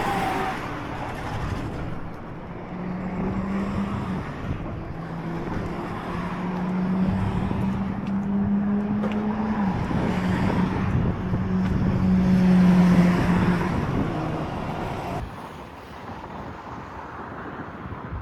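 Road traffic: a motor vehicle's engine drone holds a steady low pitch for about ten seconds, drops slightly once partway through, then fades away a few seconds before the end.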